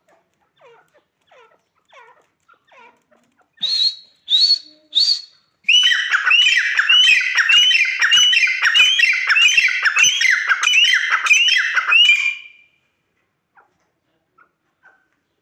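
Francolin (teetar) calling: a few soft calls, then three sharp rising calls about four seconds in, then a loud, fast series of repeated calls, about two a second, for some seven seconds before stopping.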